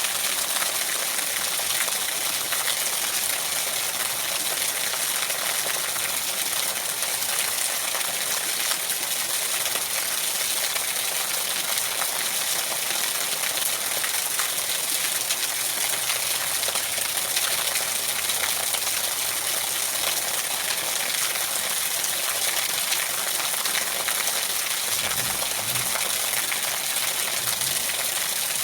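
Steady heavy rain falling, a continuous even hiss full of fine patter.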